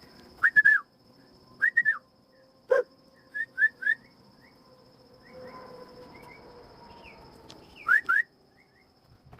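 Short, high whistled chirps in quick clusters of two or three, with a single sharp click about three seconds in.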